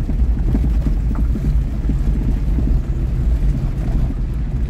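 Car driving on an unpaved dirt road, heard from inside the cabin: a steady low rumble of engine and tyres, with small knocks and rattles from the rough surface.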